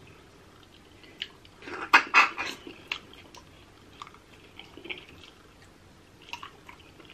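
A person eating steamed crab close to the microphone: wet chewing and smacking with scattered small clicks. There is a louder burst of noisy mouth and shell sounds about two seconds in.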